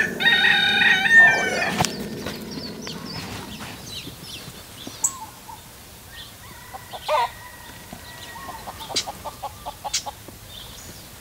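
Wild rooster (feral chicken) crowing loudly once at the start, a multi-part cock-a-doodle-doo, followed later by quieter calls and a quick run of short clucks.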